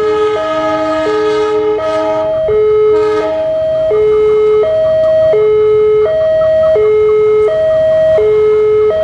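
Railway level-crossing warning alarm sounding its repeating two-tone signal, a higher and a lower tone alternating, each held just under a second. Over it a diesel locomotive's horn blows a long blast for the first couple of seconds and a short one about three seconds in.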